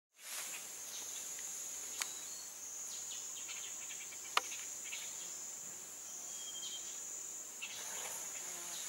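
Steady high-pitched drone of insects, with two sharp clicks: one about two seconds in and a louder one a little after four seconds.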